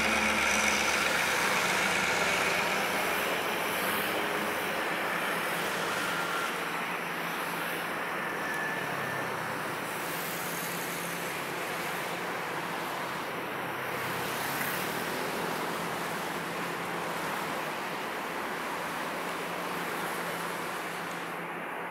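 A steady vehicle rumble that fades over the first eight seconds or so, then holds at a steady level to the end.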